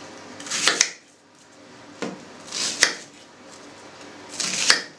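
Kitchen knife slicing through an onion, three cuts about two seconds apart, each ending in a sharp knock of the blade on the cutting board.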